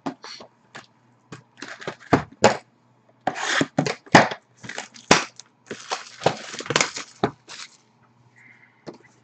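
A sealed Black Diamond hockey card box being handled and unwrapped: plastic wrapping crinkling and tearing in several spells, with sharp clicks and knocks as the cardboard box is turned over and set down on a glass tabletop. A faint low hum runs underneath.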